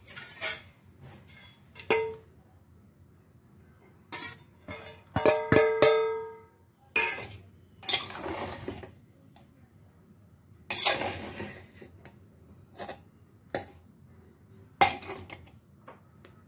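A metal spoon knocking, clinking and scraping against a metal cooking pot as biryani rice is mixed, with longer scraping stretches while it is stirred. About five seconds in, a metal strike rings with a clear tone for about a second.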